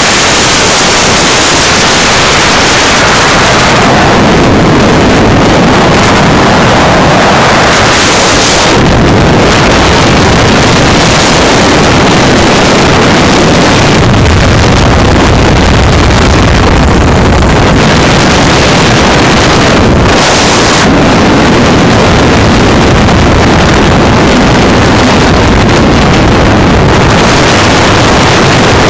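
Heavy wind noise buffeting the microphone of a moving motorcycle, with the motorcycle's engine running underneath. The hiss eases briefly a few times, around 4, 9 and 20 seconds in.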